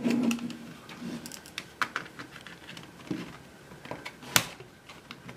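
Small screwdriver prying and scraping at the casing of a Panasonic SL-CT810 portable CD player. Several sharp clicks sound, the loudest a little over four seconds in, as the casing's hidden snap clips are worked loose.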